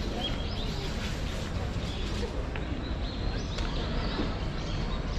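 Indistinct chatter of passers-by over a steady background hum, with small birds giving short, repeated chirps.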